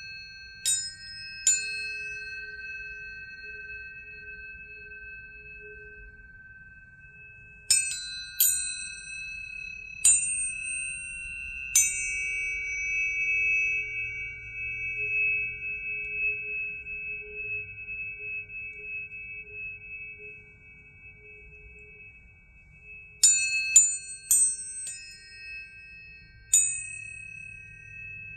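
Tuning forks struck one after another. Each strike is a bright metallic tap followed by a long, steady ringing tone, and several pitches overlap and sustain together. A quick run of strikes comes near the end.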